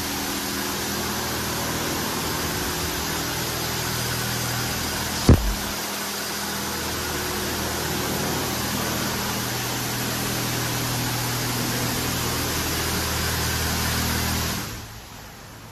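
PDQ LaserWash M5 touchless car wash spraying water over a car: a steady hiss of spray with the pump's low hum underneath, one sharp knock about five seconds in, and the spray and hum cutting off near the end.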